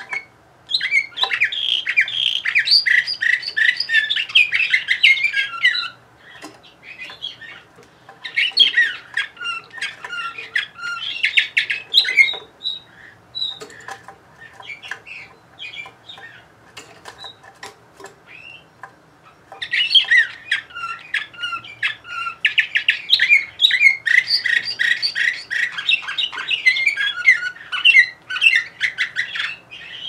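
Canary singing: three long phrases of fast warbling trills and rolls, separated by pauses filled with scattered single chirps.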